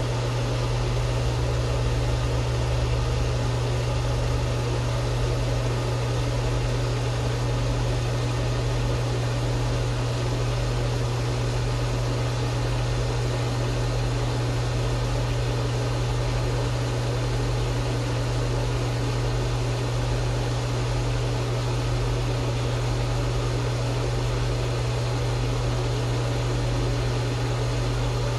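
Steady low mechanical hum with an even hiss over it, unchanging throughout, as from a running motor or fan.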